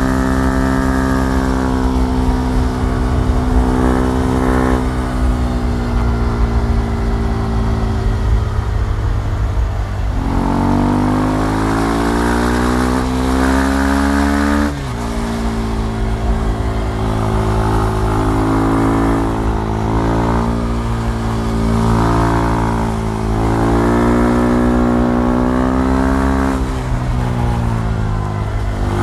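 KTM Duke 390's single-cylinder engine under way, its note climbing with the revs and dropping sharply at a gear change about halfway through, then swelling and easing off several more times.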